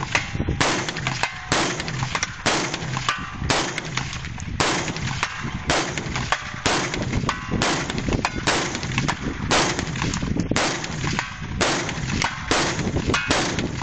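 AR-15 rifle firing a steady string of single shots, about one a second, roughly fifteen in all.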